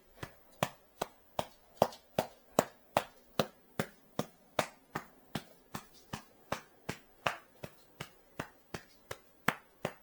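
A steady run of sharp, evenly spaced clicks or taps, about two and a half a second.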